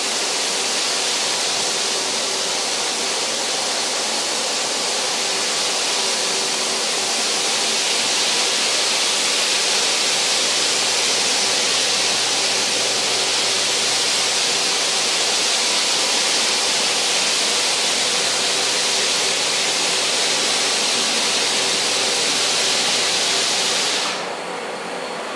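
Orbital floor sander running on a hardwood floor for the final pass before stain, with a dust-containment vacuum drawing through it: a loud, steady rushing noise. About 24 s in the sander stops and the quieter vacuum keeps running alone.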